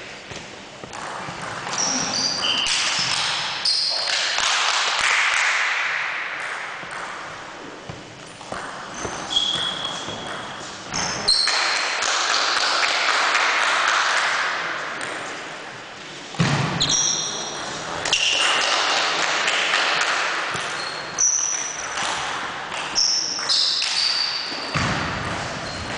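Table tennis rally and play between points: a plastic ball clicking off paddles and the table, with short high squeaks from sneakers on the wooden gym floor. Under them a loud rush of hall noise swells and fades every few seconds, with some speech in it.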